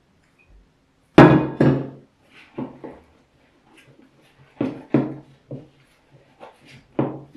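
Irregular knocks and thunks of kitchenware, about seven in all, the loudest about a second in. A stainless steel mixing bowl is put down on a wooden table, and a utensil knocks against a plastic bowl while whipped cream is scooped and tapped off it.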